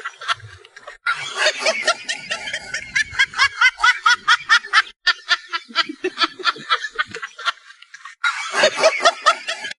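Laughter in quick, even 'ha-ha-ha' pulses, breaking off and starting again abruptly about a second in, around five seconds in and just past eight seconds.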